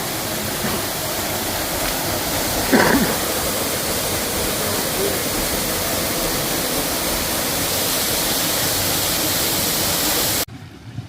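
Waterfall rushing: a loud, steady wash of falling water. A short voice-like sound comes about three seconds in, and the water noise cuts off abruptly near the end.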